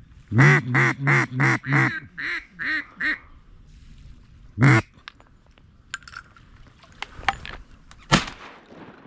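Mallard duck call blown close by: a quick run of about eight quacks, the first five loud and the last three softer, then one more loud quack about four and a half seconds in. Scattered clicks and rustling follow, with a sharp knock near the end.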